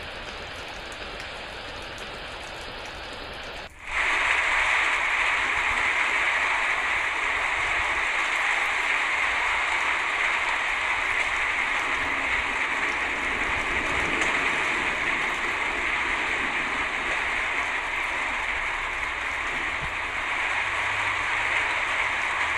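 Steady rain, which cuts suddenly about four seconds in to a louder, steady hiss of heavier rain.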